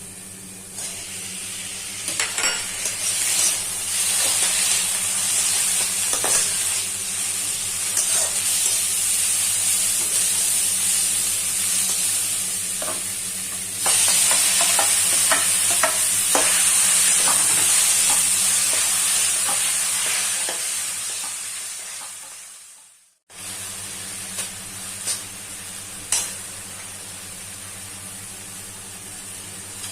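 Food sizzling in hot oil in a pan while a utensil stirs it, with scattered clicks and scrapes against the pan. The sizzle grows louder about halfway through, fades away, and after a short break comes back quieter with occasional clinks.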